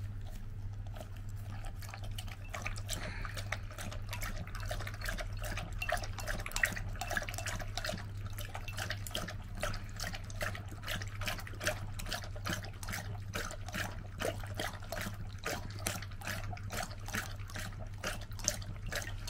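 Golden retriever lapping water: a long, fairly regular run of short wet laps, about three to four a second.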